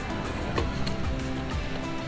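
Background music with held notes, over faint low road and engine noise.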